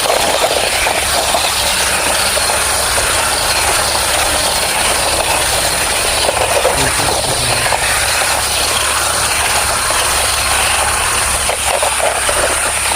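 Toy cars running round the wall of a toy 'death well' arena: a steady, loud rattling whirr of small motors and wheels.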